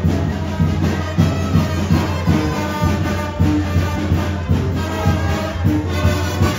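Music with brass instruments, trumpets and trombones, over a steady beat and bass line.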